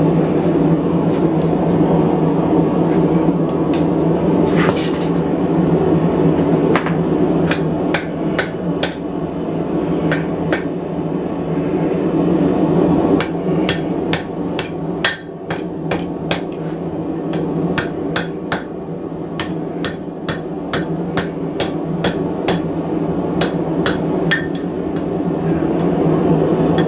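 Hammer striking hot coil-spring steel on an anvil to straighten it, the blows ringing metallically; a few scattered strikes, then a steady run of about two blows a second from about halfway through, stopping shortly before the end. A steady low roar runs underneath.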